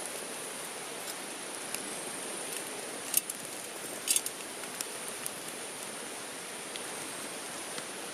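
Stream water rushing steadily, with a thin high-pitched whine held above it and a few light clicks, the loudest about three and four seconds in.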